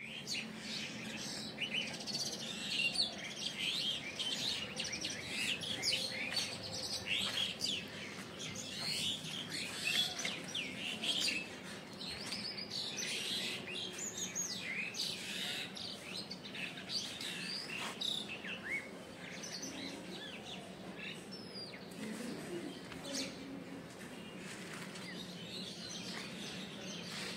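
Many small birds chirping in the trees, a dense chorus of short high calls that is busiest for the first ten seconds or so and thins out after. A faint steady low hum runs underneath.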